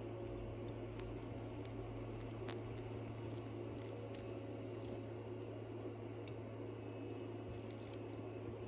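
Faint, scattered light clicks and taps of watchmaker's tools handling the parts of an Eterna calibre 1117U watch movement during reassembly, over a steady low hum.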